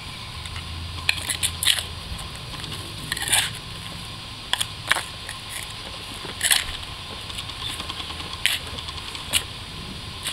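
Gloved hands sweeping and pushing loose soil across the face of a flat stone grave marker, believed to be marble, in short, irregular scraping strokes.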